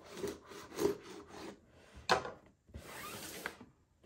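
A cardboard shipping box being opened: packing tape cut and cardboard scraping and rubbing, with a sharp scrape about two seconds in and a longer scraping stretch just after.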